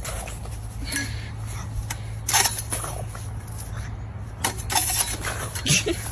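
Scattered light clicks, knocks and scraping sounds over a steady low hum.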